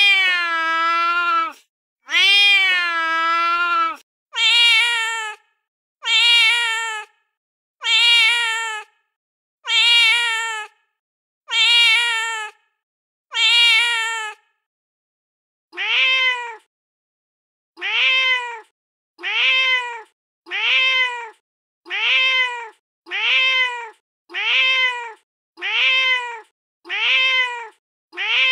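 Recorded domestic cat meows played back from a cat-sounds app, one clip after another. First come two long, drawn-out meows, then a run of meows about every two seconds. After a short gap about halfway, a different, shorter meow repeats identically about every one and a half seconds.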